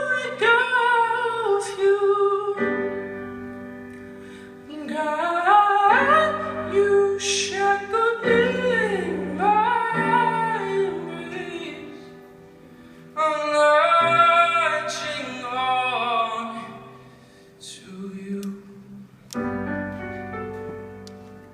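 Live ballad singing: a solo voice sings long, sliding wordless runs in three phrases over sustained piano chords. Near the end the voice stops and the piano chords ring on alone.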